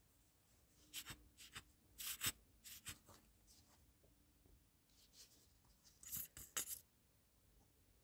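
Plastic squeeze bottle of PVC shoe glue being squeezed into holes in a rubber boot sole: faint, short scratchy hisses and rubs, in a cluster over the first three seconds and another about six seconds in.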